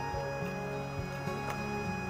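Background music: a bright, tuneful melody of held notes over a bass line.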